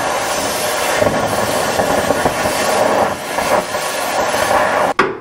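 Cutting torch running with a loud, steady rushing hiss, cutting through steel of a bulldozer's track idler spring assembly. It stops near the end with a single sharp metal knock.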